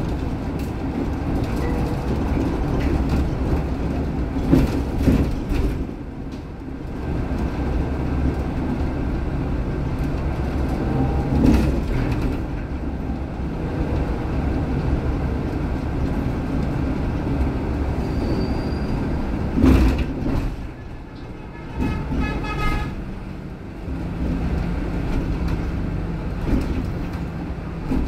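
Steady rumble and road noise inside a moving city bus, with rattles and a few sharp knocks and clatters as it runs over the road.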